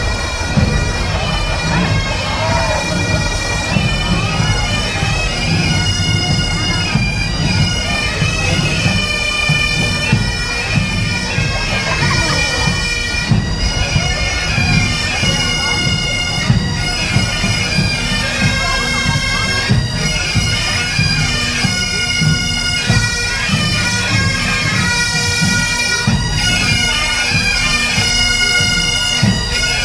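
A marching band playing reedy wind instruments in sustained chords and melody over steady drumbeats.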